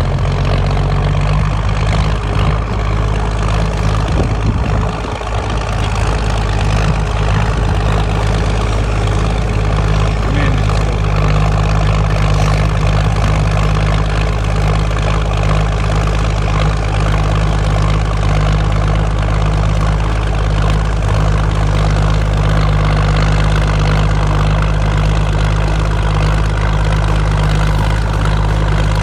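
Heavy engine running steadily at constant speed: a deep, even hum that holds unchanged throughout, with a brief dip about five seconds in.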